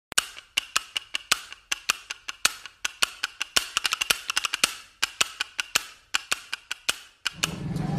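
A fast, uneven run of sharp, dry clicks or knocks, about five or six a second, laid over the edited intro as a percussive sound effect. The clicks stop about seven seconds in, and a low steady hum starts up.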